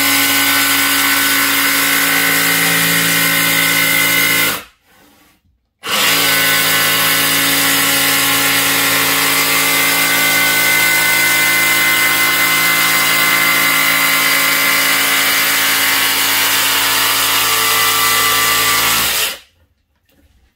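Ryobi 18V ONE+ cordless jigsaw sawing through a thin white board, the motor and blade running at a steady speed. It stops for about a second about four and a half seconds in, then runs on steadily until shortly before the end, when it stops.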